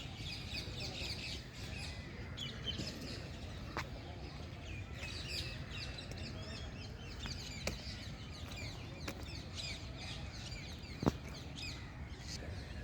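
Many birds chirping at once in a steady chorus of short, quick calls. A low steady rumble runs underneath, and a single sharp click stands out near the end.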